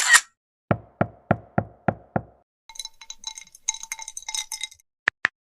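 A quick run of separate editing sound effects: a short swish, six even knocks about three a second, a jingling of small bells, then two short high blips near the end.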